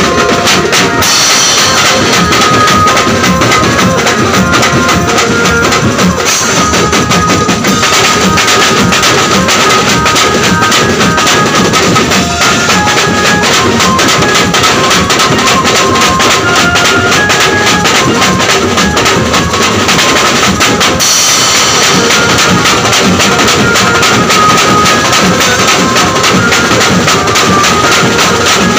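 Banjo party band playing loud and nonstop: a drum kit of toms and cymbals, together with hand-beaten side drums, keeps up a fast, dense beat, with held melody notes sounding over it.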